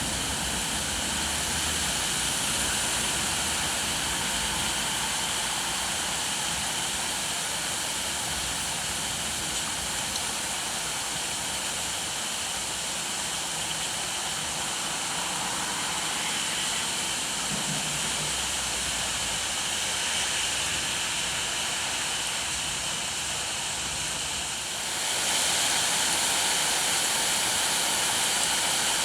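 Steady rain falling, an even hiss that gets louder a few seconds before the end.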